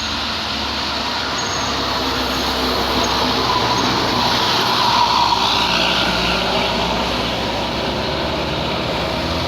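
Tour bus's diesel engine labouring up a steep climb, with tyre and road noise. It grows louder to a peak about halfway through as the bus passes, then eases off.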